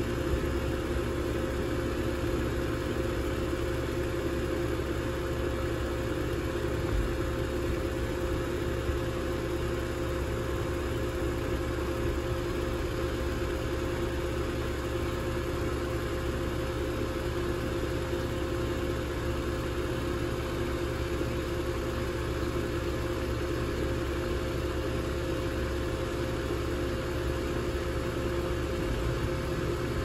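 2001 York 2-ton air conditioner running steadily: an even mechanical hum with two held tones over a low rumble, unchanging throughout.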